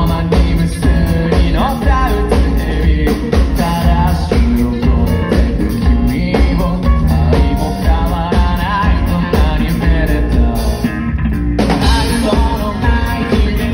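Live rock band playing at full volume with a male lead singer: sung vocal line over drums, heavy bass, electric guitar and keyboard. Near the end the high end drops away for under a second before the full band comes back in.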